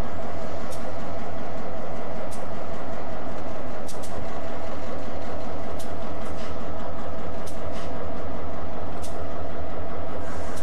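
Diesel-electric freight locomotive engine running loud and steady close by as the locomotive rolls slowly past, with a sharp click about every second and a half.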